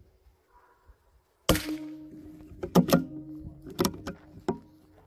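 A single shot from a CZ 452 bolt-action .22LR rifle, a sudden crack about one and a half seconds in, followed by the bolt being worked to reload: several sharp metallic clicks in two quick groups.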